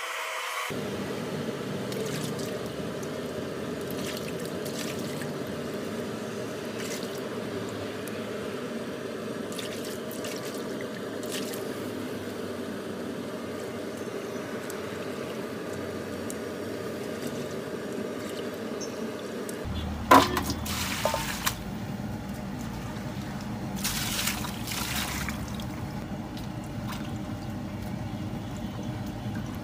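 Water sloshing and trickling in a metal basin as raw chicken feet are washed by hand and lifted out into a strainer, with one sharp knock about two-thirds of the way through.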